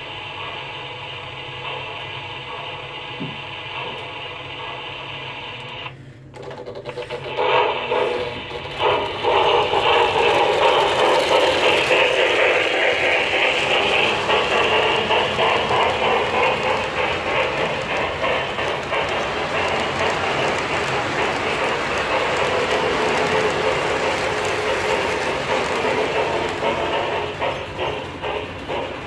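O gauge model freight train on three-rail track: a steady hum while the locomotive stands, then from about eight seconds the cars roll past close by, a loud continuous rumble of metal wheels with rapid clicking.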